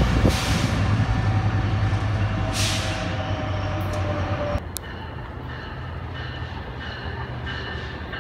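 Metrolink train with its diesel locomotive rumbling as it moves away, fading steadily. About four and a half seconds in the sound drops suddenly to a quieter, more distant train rumble.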